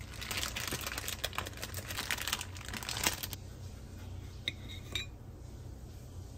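Food packaging crinkling as it is handled for about three seconds, then two short clinks about half a second apart.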